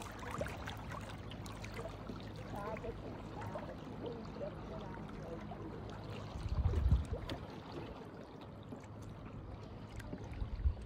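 Water burbling and lapping around a kayak carried along by stream current, with a short low rumble about six and a half seconds in.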